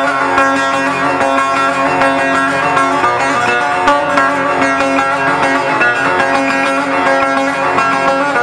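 Instrumental Turkish folk music: bağlamas plucked in a running melody, with electronic keyboard accompaniment.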